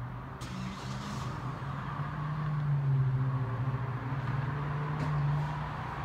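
Road traffic: a motor vehicle's engine hum that grows to its loudest about three seconds in and then eases off, with a short hiss about half a second in.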